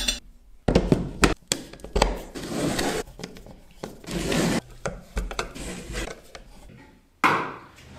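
Assembling an IKEA Marius steel-tube stool: the metal frame knocking and clinking and a hand screwdriver turning screws into the seat, heard as a string of short scrapes and knocks with a louder one near the end.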